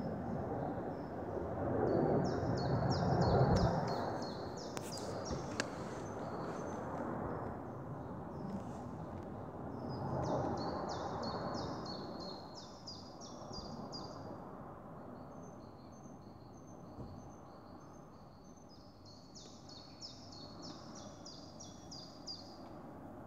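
A songbird sings three phrases of rapid, evenly spaced high chirps over a low rumble in the sky. The rumble swells twice and then fades.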